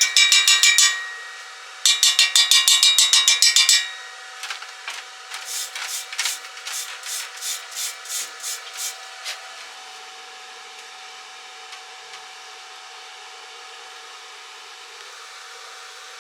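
A hammer striking steel in two fast runs of about six ringing blows a second, then lighter, slower taps for several seconds.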